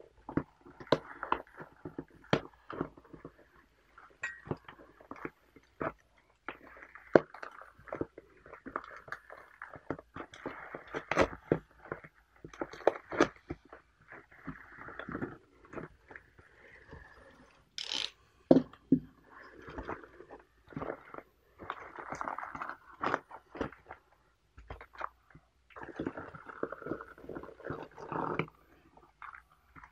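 Plastic postal mailer being cut and torn open by hand with a utility knife, crinkling and rustling with many sharp clicks, then foil tea packets rustling as they are pulled out and set down.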